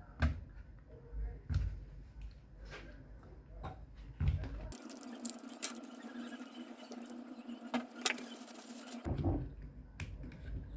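Handling and reassembly of a Shimano Catana spinning reel: scattered small clicks, taps and light scraping of the reel's parts and tools, with a sharper knock just after the start and others at about one and a half and four seconds.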